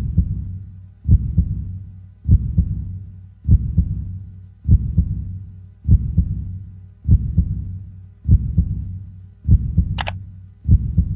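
Heartbeat sound effect counting down a quiz timer: a low double thump about every 1.2 seconds, ten in all. A short high blip sounds about ten seconds in, as the answer is revealed.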